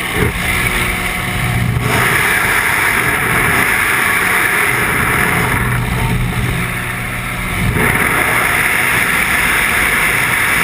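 Loud, steady rush of wind on the microphone mixed with the drone of a small jump plane's engine and propeller, easing slightly a few seconds before the end.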